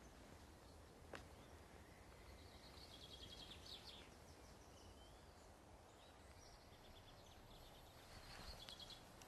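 Faint woodland ambience with songbirds trilling in the distance, a burst of quick high notes around three seconds in and again near the end. A single faint click sounds about a second in.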